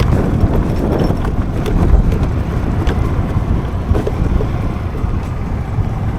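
Riding noise from a Suzuki Burgman Street 125 scooter on the move: steady wind rumble on the action camera's built-in microphone mixed with road and engine noise, with a few light knocks.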